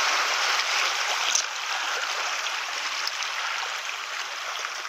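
Seawater washing and trickling among wet shoreline rocks: a steady rushing hiss, a little louder in the first second or so.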